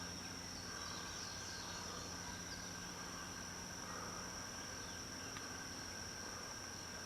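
Outdoor background with a steady high-pitched insect drone and a few faint bird chirps.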